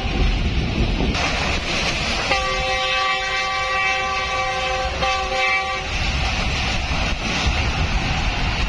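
Locomotive horn sounding a long multi-tone blast of nearly three seconds, starting a couple of seconds in, followed at once by a shorter one. Underneath is the steady rumble and clatter of the moving passenger train.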